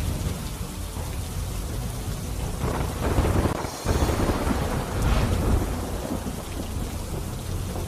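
Fast floodwater of a river in spate rushing and churning: a steady heavy rushing noise with a deep rumble, with a short break a little before the middle.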